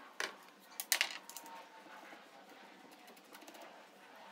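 A few light metallic clinks and knocks of alternator parts being handled on a wooden workbench, one near the start and a louder one about a second in, then a faint steady background.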